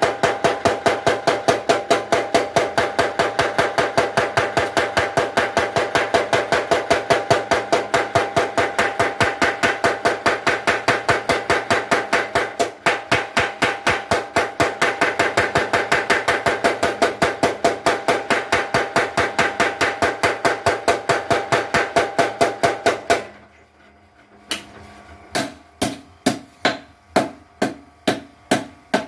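Blacksmith's power hammer striking in a fast, even rhythm, about four blows a second, with a steady metallic ring. It stops abruptly near the end, then starts again with slower, lighter blows.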